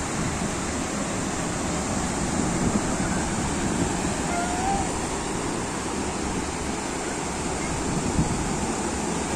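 Sea surf washing onto a sandy beach: a steady, unbroken rush of waves.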